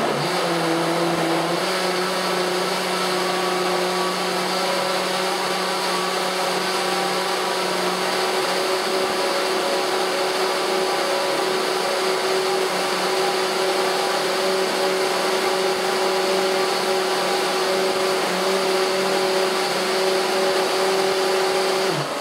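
Countertop blender motor running steadily at high speed, blending frozen blueberries into a green smoothie. Its hum steps up slightly in pitch about a second and a half in, then holds steady until it is switched off at the very end.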